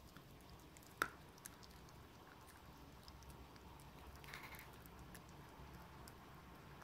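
Shih-poo puppy gnawing a stick chew: faint, irregular chewing clicks and ticks of teeth on the chew, with one sharp click about a second in.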